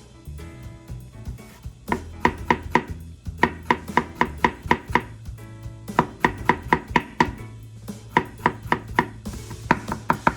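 Kitchen knife chopping on a cutting board in quick, even runs of about five or six strokes a second, starting about two seconds in, over quiet background music.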